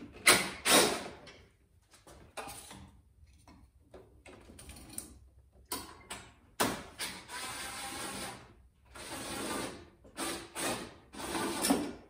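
Cordless drill-driver running in bursts, backing out Torx screws from a motorcycle fairing's light bar. Two short, loud bursts come near the start, and longer runs of a second or two come in the second half.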